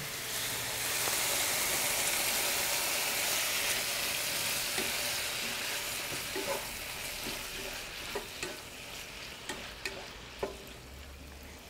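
Steak bites and mushrooms sizzling in a hot frying pan, the sizzle strongest in the first few seconds and slowly dying down. From about halfway, light taps and scrapes of a spatula stirring them against the pan.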